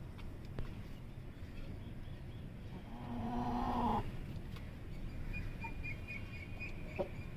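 Shamo game chicken giving a single low call, about a second long, about three seconds in.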